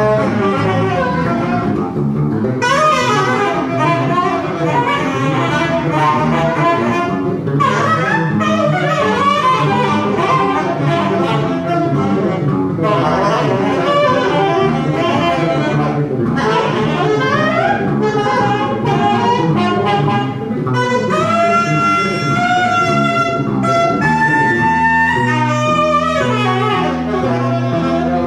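Live jazz ensemble improvising: several horn lines, saxophone-like, sliding and overlapping over a busy low part. In the last few seconds held high horn notes sit over a steady low drone and a repeating low bass figure.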